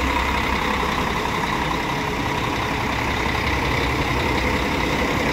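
The 360 hp Mercedes-Benz engine of a Marcopolo 1200 coach idling steadily, a deep rumble ("roncão").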